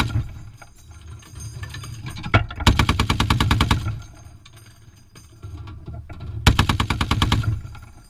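Browning M2 .50-calibre heavy machine gun firing short bursts. One burst trails off as the clip begins. A single shot at about two and a half seconds is followed almost at once by a burst of about a second, and another burst of about a second comes near the end.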